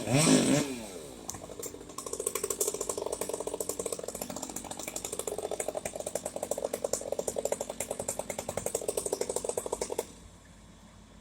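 A chainsaw engine dropping from a rev at the start, then a fast mechanical ratcheting rattle of rapid clicks for several seconds that cuts off suddenly near the end.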